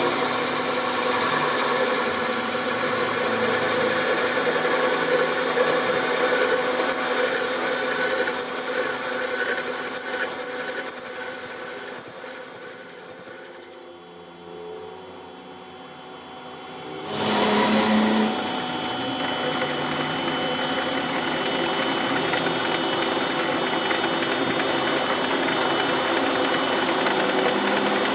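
A power tool or machine running steadily, with a workshop motor's hum. It fades and drops away about 14 seconds in, then starts up again about three seconds later and runs steadily on.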